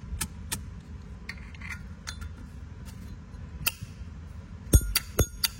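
Brass Zippo lighter being handled: a few faint clicks, then near the end a quick run of sharp, ringing metallic clinks from its hinged lid and case.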